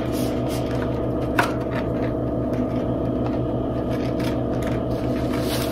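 Light clicks and scrapes of serving spoons and forks against paper plates and plastic takeout containers as food is dished out. A sharper click comes about a second and a half in, over a steady low hum.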